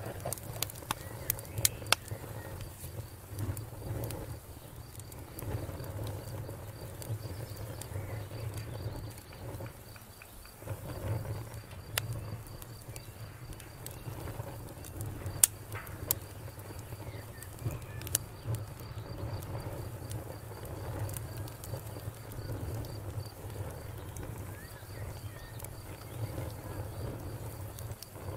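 Wood campfire crackling, with scattered sharp pops and snaps over a low steady rumble. A faint, evenly pulsed insect trill runs in the background.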